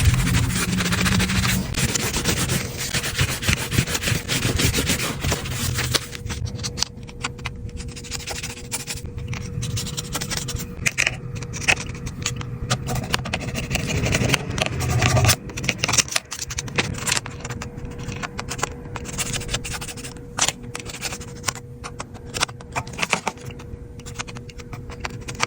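Hand rubbing and scrubbing on an iPad during cleaning and repair, steady at first, then giving way after about six seconds to scattered short scrapes and clicks.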